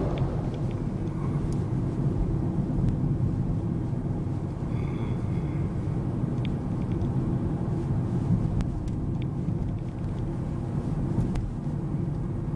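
Steady road and engine rumble heard inside the cabin of a moving car. An oncoming lorry passes with a brief swell right at the start.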